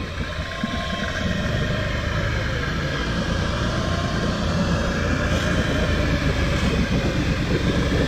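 Can-Am 6x6 ATV's V-twin engine running steadily under load as the machine works through river water, its pitch drifting slightly up and down, with water churning around the hull.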